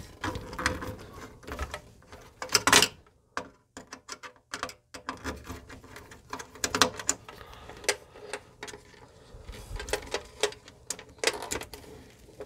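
Hands working wires and small screws at a terminal strip inside a metal electrical box: irregular small clicks, taps and rattles, the loudest about two and a half seconds in.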